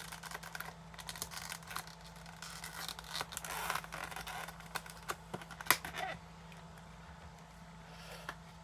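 Wax paper wrapper of a card pack being torn open and crinkled, with the tearing and rustling heaviest about three to four seconds in and a few sharp snaps near six seconds, then dying down.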